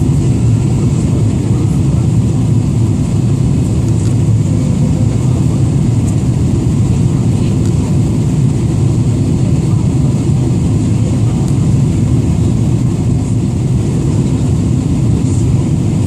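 Steady cabin rumble of a Boeing 777-300ER in flight, the deep, even roar of its GE90 engines and the airflow over the fuselage heard from inside the cabin.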